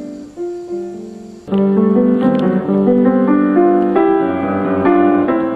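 Piano being played, several notes sounding together, louder from about a second and a half in.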